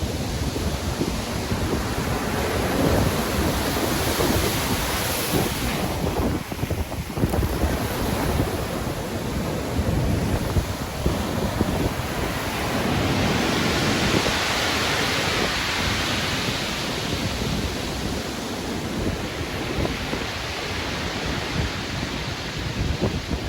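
Stormy sea: ocean waves breaking and surging with strong wind, a continuous rushing of surf that swells and eases, building to a brighter, hissing wash about halfway through.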